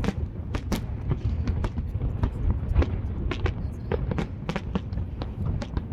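Fireworks going off: many sharp, irregular bangs and crackles, several a second, over a steady low rumble.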